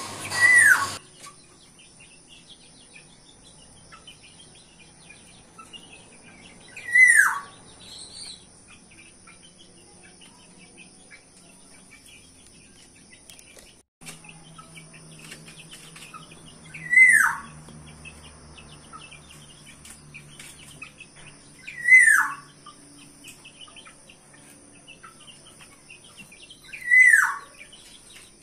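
Black-naped oriole (kepodang) calling five times with a clear whistled note, each a single short note falling in pitch, spaced about five seconds apart. Faint chirping goes on between the calls.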